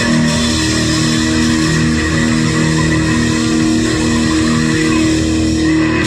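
Rock band music with electric guitar playing held chords and no vocals: the closing instrumental bars of a 1990 Soviet rock song played from vinyl.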